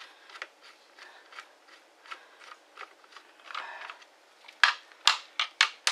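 Small clicks and scrapes of a Ridgid X2 cordless drill's parts and hand tools being handled while a small metal clip is worked back into the drill, ending in a quick run of sharp, louder clicks.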